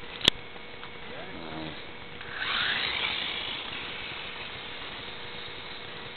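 A sharp click, then about two seconds in the brushed electric motor and drivetrain of an RC motorcycle on a 7.2 V NiCd battery whirring up with a rising pitch as it launches, fading as it moves away.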